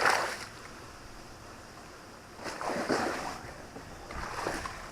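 Lake water slapping and splashing against a small fishing boat's hull in a strong wind, in three surges over a steady rush of wind.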